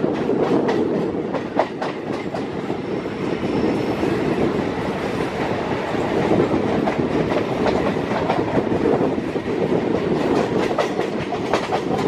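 Suburban electric local train running at speed, heard from on board: a steady rumble of wheels on the track with irregular clattering clicks.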